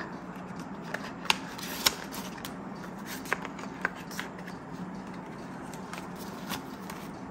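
Hands flicking through Australian polymer banknotes and a clear plastic binder envelope: light rustling with a few sharp clicks and snaps, mostly in the first four seconds, over a faint steady hum.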